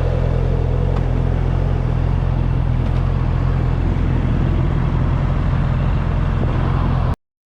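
Motorcycle engine running at a steady speed with wind rushing past the microphone. It cuts off abruptly about seven seconds in.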